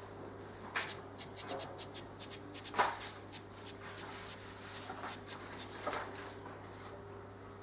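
Magnetic aquarium glass scraper rubbing and knocking against the tank glass: a run of light scratchy clicks with a few sharper knocks, the loudest about three seconds in, over a steady low hum.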